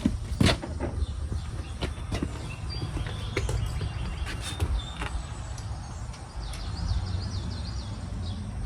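Hand tools clicking and knocking on metal as valve cover bolts are worked loose, with a steady low rumble behind them. A warbling high whistle comes in near the end.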